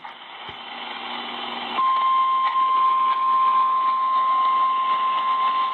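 Emergency alert attention tone: a single steady high tone that starts about two seconds in, over a hiss of broadcast static that swells up before it.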